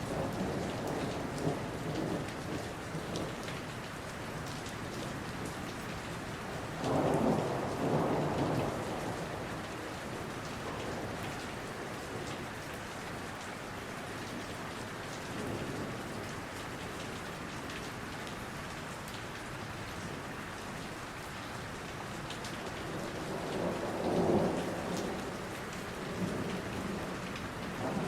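Steady rain with rolls of thunder, the two loudest rumbles about seven seconds in and near the end.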